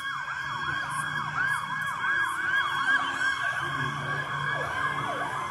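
Siren yelping: a fast, repeating up-and-down wail, with several sweeps overlapping.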